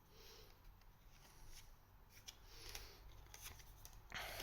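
Near silence with faint handling of trading cards: a few soft ticks and rustles as cards are slid and flipped, a little more of them in the second half.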